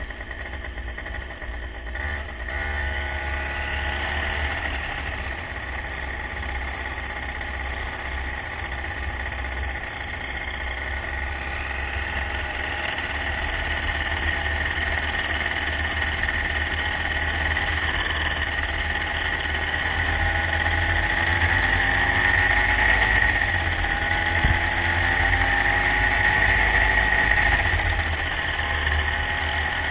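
A motor vehicle's engine running steadily, its pitch drifting slowly and growing louder over the last third, over a low rumble.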